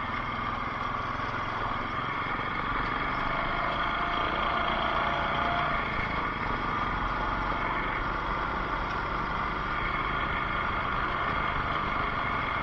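Off-road bike's engine running steadily while riding.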